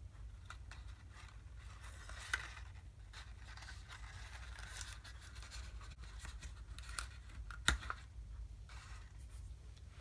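Card-stock paper being handled as the flaps of a small folded paper box are tucked closed: faint rustling and scraping with a few light taps, the sharpest about three-quarters of the way through, over a low steady hum.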